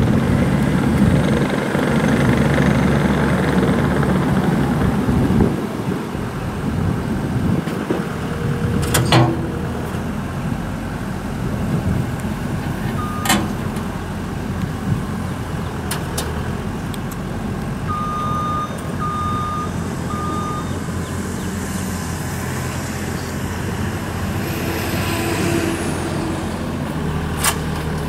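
2012 New Holland C232 high-flow skid steer's diesel engine running, louder for the first few seconds and then settling lower. A reversing alarm gives a short beep about halfway through and three short beeps soon after, and there are a few sharp knocks.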